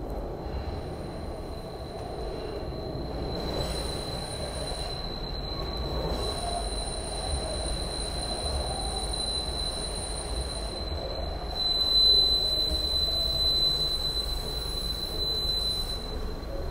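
SEPTA Broad Street Line subway train running, heard from inside the car: a steady low rumble of wheels on rail with a steady high-pitched wheel squeal that grows louder about four seconds in and is loudest around twelve seconds.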